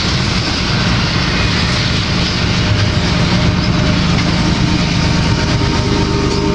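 Double-stack intermodal freight train's container cars rolling past, a loud steady noise of steel wheels on the rails.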